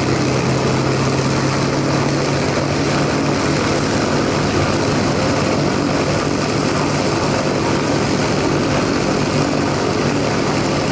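A North American P-51D Mustang's V12 Merlin engine running steadily at low taxi power, with propeller noise over it. Its low engine note steps up slightly about two to three seconds in.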